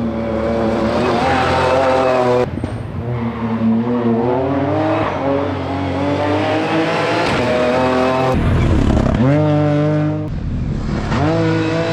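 Ford Fiesta R2T rally car's turbocharged three-cylinder engine revving hard under acceleration. Its pitch climbs, falls back at each gear change and climbs again, with a sharp break about two and a half seconds in and a deeper drop and rise about eight seconds in.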